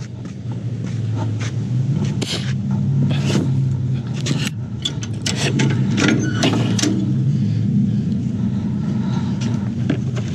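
A vehicle engine idling steadily, with sharp metallic clicks and knocks as a car-trailer ratchet tie-down strap and its chain are worked loose.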